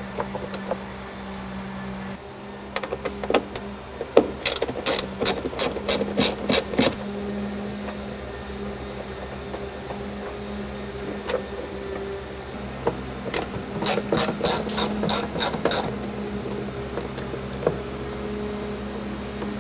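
Hand ratchet clicking in two quick runs of about four clicks a second, with a few single clicks between, as Torx bolts are backed out of plastic interior trim.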